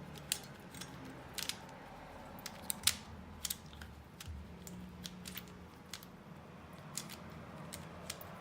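Qiyi Qiming Pyraminx being turned quickly by hand: a run of irregular sharp plastic clicks as its magnetic layers twist and snap into place.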